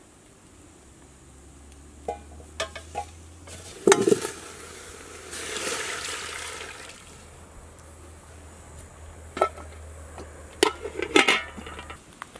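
Sharp clanks of a metal cooking pot and lid, then water poured from a glass jug into a steel pot of cut potatoes for about two seconds, followed by more clinks and clanks of the cookware.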